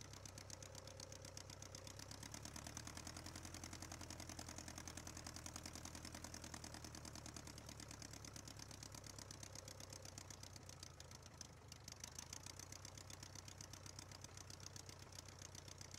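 Small airplane engine idling, faint and steady with an even firing rhythm: a 1946 Aeronca Champ's air-cooled flat-four, running at idle while it taxis.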